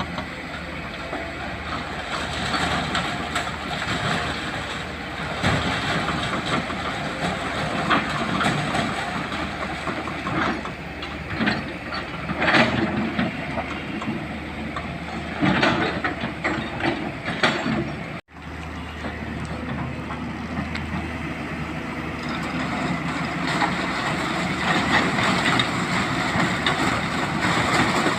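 Excavator diesel engine running steadily, with irregular loud clanks and scraping of rock against the steel bucket through the middle.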